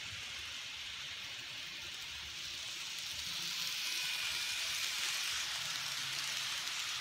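N-scale model passenger train, a Kato Southern Pacific 4449 Daylight steam locomotive and lit cars, rolling on curved track: a steady hiss of wheels on rail with a faint high whine. It grows louder about three seconds in as the train comes close.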